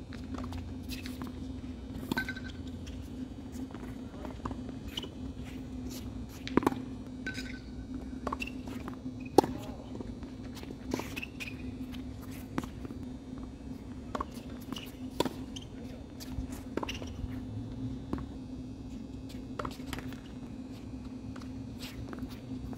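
Tennis balls being struck by rackets and bouncing on a hard court during rallies, heard as sharp pops every second or two, with players' footsteps. A steady low hum runs underneath.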